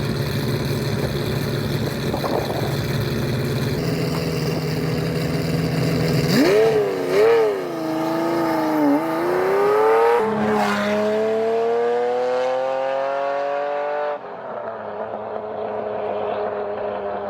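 A car engine running steadily, then revved up and down a few times, then rising steadily in pitch as it accelerates, easing off suddenly near the end.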